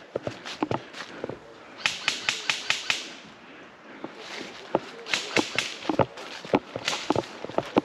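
Airsoft gun shots: two quick strings of sharp cracks about six a second, around two seconds in and again around five seconds in, with duller footfall knocks between them.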